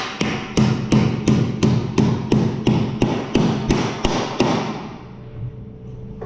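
Rapid, even knocking, about three blows a second, fading away after about four and a half seconds.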